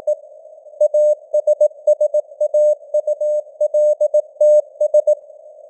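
Morse code sent at 18 words per minute as a single steady beep tone, keyed in short dots and longer dashes over the hiss of simulated radio noise. The keying starts about a second in and stops near the end, leaving only the noise.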